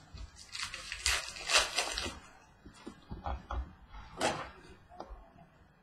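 Hands handling trading cards and a foil pack wrapper: rustling, crinkling bursts, loudest from about one to two seconds in and again around four seconds, with a few light clicks of cards on the table.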